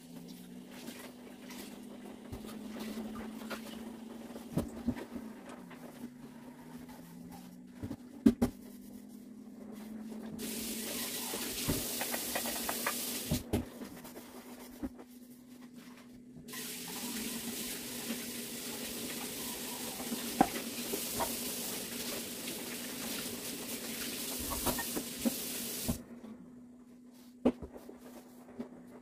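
Kitchen work at the sink: a tap runs twice, once for about three seconds and then for about nine, switching on and off sharply, between clinks and knocks of dishes and utensils. A steady hum runs underneath.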